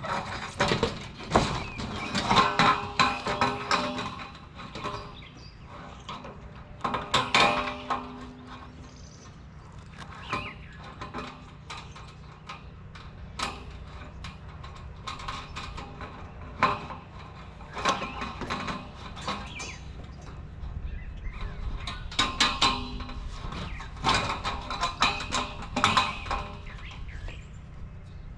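Corrugated galvanized steel garden-bed panels being handled and fitted together: irregular clanks and knocks of sheet metal, some ringing briefly, in clusters with quieter gaps.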